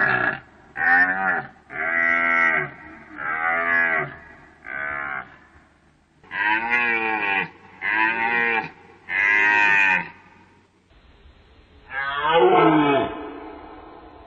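Deer calling: a run of about eight short, pitched calls in two groups, then, after a change of recording, a longer call that falls steeply in pitch.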